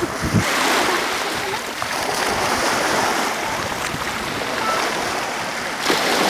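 Steady rushing wash of small waves breaking and lapping in shallow water at a beach.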